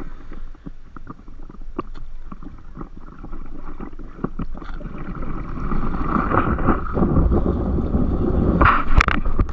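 Shallow seawater sloshing and lapping against a waterproof action camera held at the surface, with many small splashes. It grows louder in the second half, with a short louder burst near the end.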